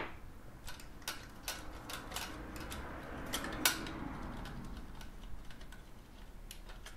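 Screwdriver turning out a small screw from a graphics card's metal I/O bracket: light metallic clicks and ticks at irregular intervals, with one sharper click a little past halfway.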